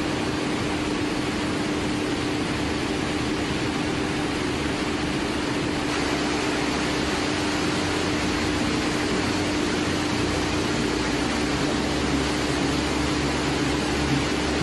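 Steady car-plant machinery and ventilation noise: an even rushing hiss with a constant hum, and a deeper rumble that grows slightly about two-thirds of the way through.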